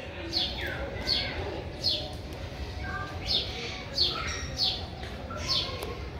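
Small bird chirping over and over, each note a quick downward sweep, about one or two a second.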